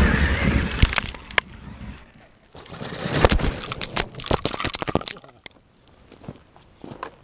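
Kyosho Foxx VE electric RC truck driving through loose dirt right at a ground-level camera, a loud rush of tyres and spraying dirt that dies away after a couple of seconds. Then a quick run of sharp cracks and knocks as the camera is knocked over and tumbles in the dirt, followed by a few faint knocks.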